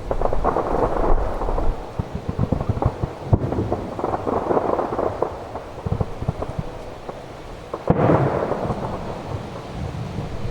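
Aerial fireworks shells bursting: deep booming and dense crackling throughout, with sharp bangs about three seconds in and again near eight seconds.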